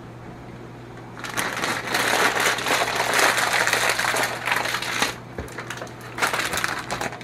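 Plastic noodle bag crinkling as it is handled and closed up: loud crackling from about a second in, lighter crinkles over the last two seconds.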